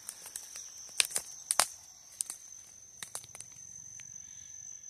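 A steady high-pitched insect trill, with scattered sharp clicks and rustles, the loudest about a second and a second and a half in.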